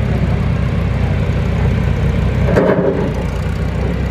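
John Deere farm tractor engine running steadily, a low even drone, with a brief louder noise about two and a half seconds in.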